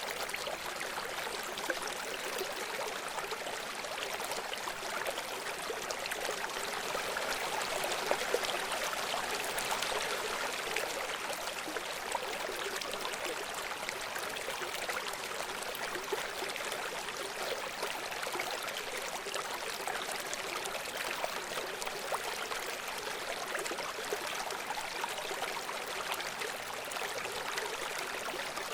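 A rocky stream or river running steadily, water rushing and splashing over stones with small gurgles and splashes.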